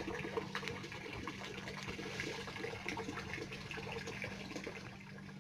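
Water trickling and splashing steadily, a continuous run of small drips and splashes, over a low steady hum.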